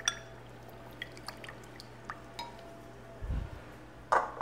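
Kitchen handling sounds as brown sugar is added to a glass measuring cup: a scattering of light clicks and taps, a soft thud about three seconds in, and a short scrape or rustle near the end.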